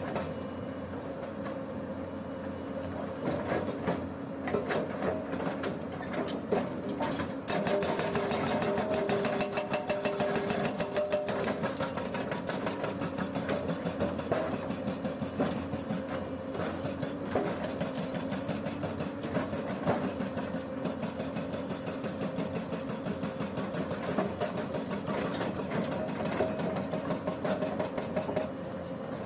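Excavator-mounted hydraulic breaker hammering: a fast, even run of sharp blows over the steady note of the Hyundai 210LC-7's diesel engine under load. The hammering grows louder a few seconds in and eases off just before the end.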